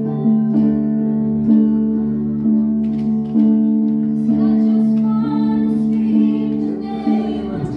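Live worship music: held chords re-struck at an even pace, with faint singing.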